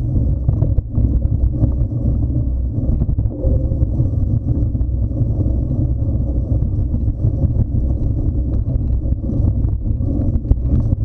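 Wind buffeting an action camera's microphone while riding a mountain bike along a leaf-covered forest trail: a steady low rumble, with scattered clicks and rattles from the tyres and bike over leaves and twigs. A few sharper knocks come near the end.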